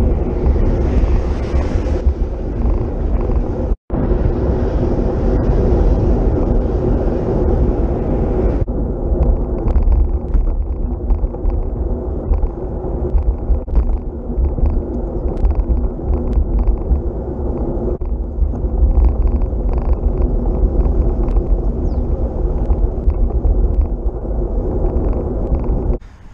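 Wind rushing over the handlebar camera's microphone, with steady road rumble, as a road bike rides along a motorway shoulder. The sound cuts out for a moment just before four seconds in.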